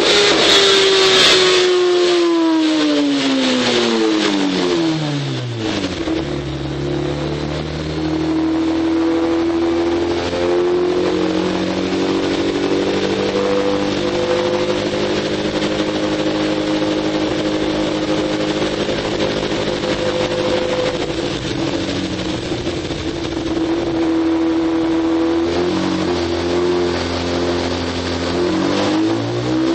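2009 Kawasaki ZX-10R inline-four on a chassis dyno, running through a Leo Vince full exhaust. The revs fall steeply over the first six seconds, hold at a low, fairly steady speed with small rises and dips for about twenty seconds, then climb quickly again near the end.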